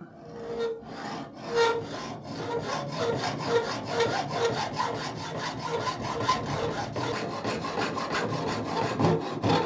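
Hacksaw cutting through a copper pipe: steady back-and-forth strokes, about two a second, each with a faint metallic ring.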